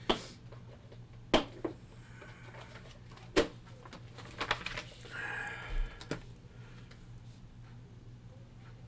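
Small objects being handled at a work surface: several sharp clicks and taps in the first six seconds and a short rustle about five seconds in, over a steady low hum.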